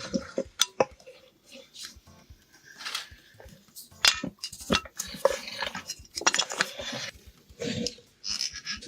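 Irregular clinks, clatters and rustles of hard objects being handled.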